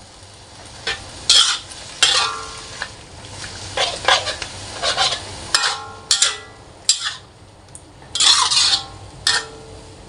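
Metal spatula scraping and tossing rice vermicelli, napa cabbage and pork in a wok, in irregular strokes, some leaving a short metallic ring, over a steady sizzle from the hot pan.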